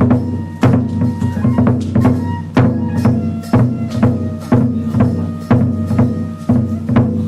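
Kagura accompaniment music: a drum struck in a steady beat, about two strokes a second, over sustained thin high notes.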